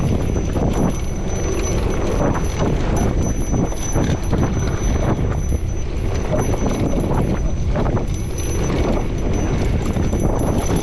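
Electric mountain bike riding over a rough dirt trail: tyres rumbling on the ground, with a steady rapid clatter of the frame and chain rattling over bumps.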